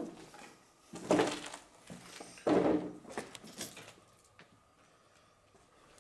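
Debris scraping and rattling on a littered floor as someone moves through it. A sharp knock comes first, then two louder noisy scrapes about a second and a half apart, then a few lighter knocks and a rattle.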